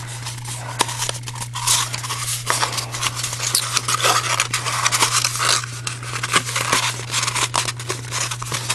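A sheet of paper rustling and crackling in the hands as it is rolled and folded into a small cone, with many short, sharp crackles; a steady low hum runs underneath.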